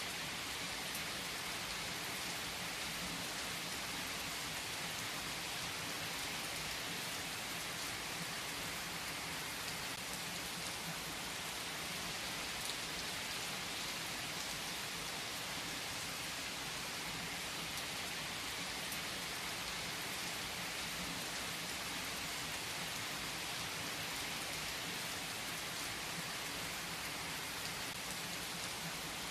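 Steady rainfall, an even hiss of rain on a surface with scattered drop ticks.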